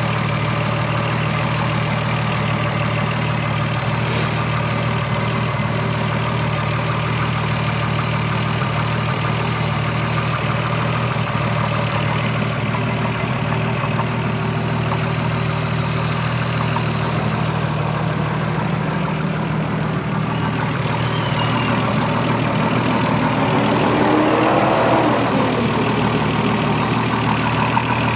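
Toyota Supra 7M-GTE turbocharged inline-six idling steadily, with a brief rise and fall in revs about three-quarters of the way through. The owner suspects a rod knock in this engine.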